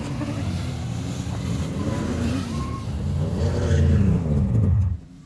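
Snowmobile engine running as it tows an inflatable banana boat over snow. Its pitch rises and falls, and it swells loudest about four seconds in before cutting off suddenly near the end.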